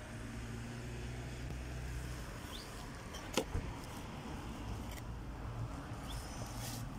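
Low, steady rumble of distant road traffic, with one sharp click about three and a half seconds in.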